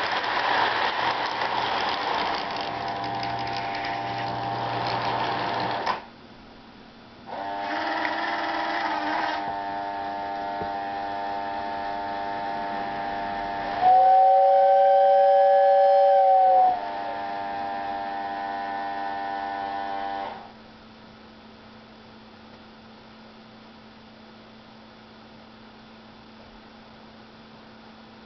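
Lionel 4-4-0 General toy train running on its track with a rattling clatter, then a steady electric whine from the set. About 14 seconds in the locomotive's two-note whistle sounds loudly for nearly three seconds. From about 20 seconds in only a low steady hum is left.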